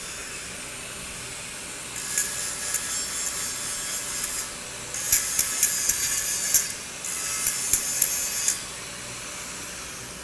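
Three bursts of harsh rasping on metal, each one to two seconds long, with sharp crackles through them.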